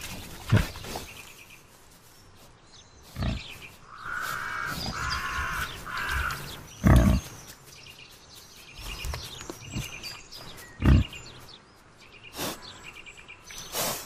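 Wild boar grunting while foraging for acorns: four short, loud grunts a few seconds apart, with a run of three higher calls near the middle.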